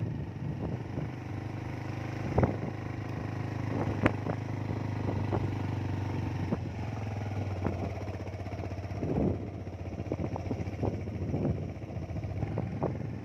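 Motor scooter engine running steadily while riding along a wet road, with a few sharp knocks, the loudest about four seconds in.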